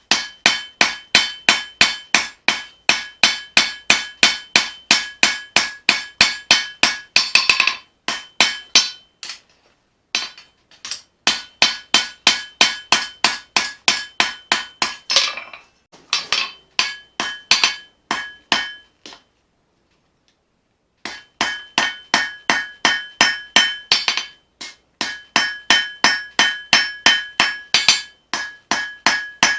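Hand hammer forging a blade of leaf-spring steel on an anvil: steady blows about three a second, each with a clear ringing tone. The blows come in runs broken by short pauses, with about two seconds of silence past the middle.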